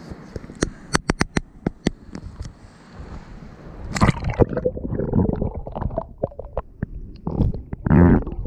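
Shallow sea water heard through a camera microphone as it is dipped under the surface: a run of sharp clicks and taps, then from about four seconds in muffled underwater gurgling and sloshing, loudest about four and eight seconds in.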